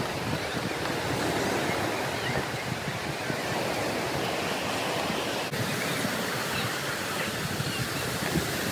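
Lake Michigan surf breaking on a sandy beach: a steady rushing wash of waves.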